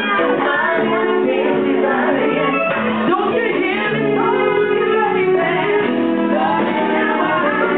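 A female lead singer singing live with a band of keyboards and horns, the music loud and continuous.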